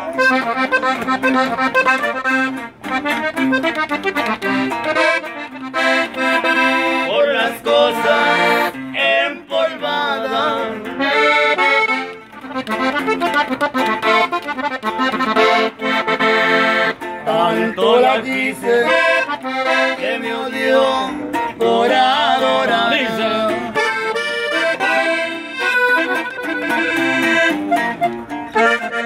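Diatonic button accordion playing a fast norteño instrumental melody, with a bajo sexto strumming the accompaniment underneath.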